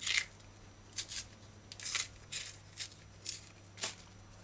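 Kitchen knife scraping and shaving along a peeled green banana, a series of short raspy strokes at uneven spacing, about two a second.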